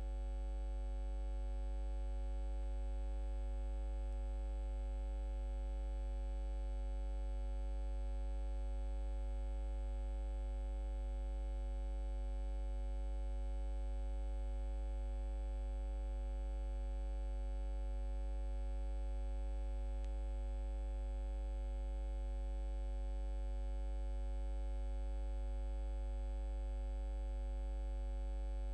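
Steady electrical mains hum with a stack of overtones, a constant buzzing drone that never changes; no sound of the scene itself comes through.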